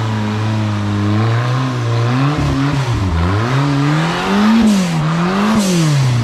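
Off-road rock buggy engine running steadily, then revving up and down in repeated throttle swells, about one a second, as it crawls over rock.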